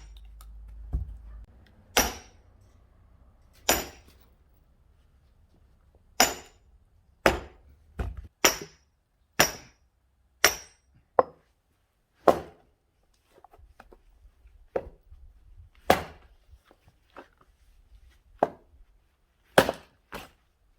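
Axe blows striking seasoned, bone-dry firewood about fifteen times, sharp knocks roughly a second apart, some with a short ring. The wood, at least two years old, is hard and resists splitting.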